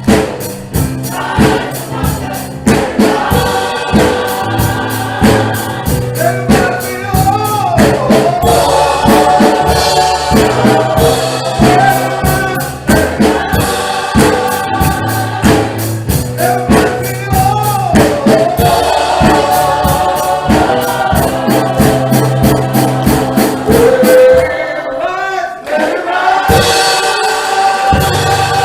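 Gospel music: a choir singing over a steady percussion beat, with a brief break near the end before the music picks up again.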